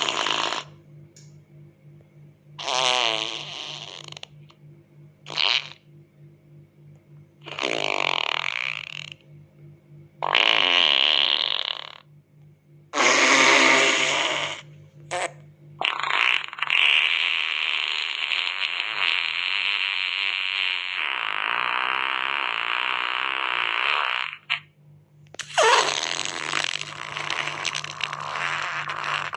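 A string of fart sound effects, about nine in all, some short blurts and some longer wavering ones, with a long drawn-out one lasting about eight seconds in the second half.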